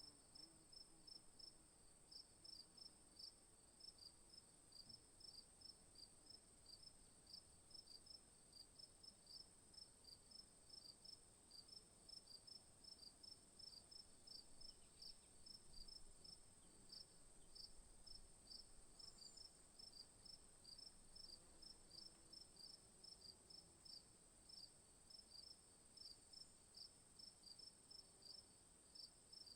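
Faint insects: a steady high-pitched buzz with a rhythmic high chirping, about three chirps a second, continuing without a break.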